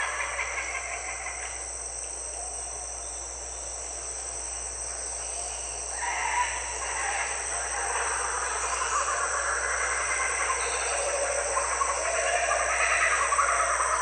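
Birds calling over a steady high insect drone. The calls thin out for a few seconds, then pick up again about six seconds in.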